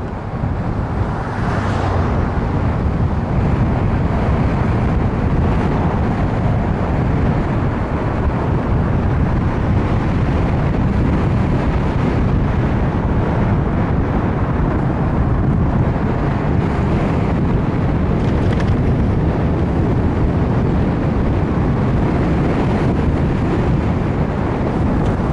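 Wind buffeting the microphone of an action camera held outside a moving car, over steady road noise.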